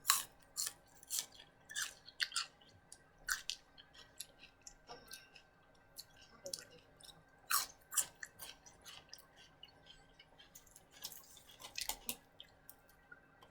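Close-up chewing of raw celery: irregular crisp crunches, about one every half second.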